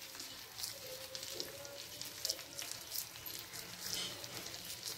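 Stuffed small brinjals frying in oil and masala in a pan: a light sizzle with scattered crackling pops.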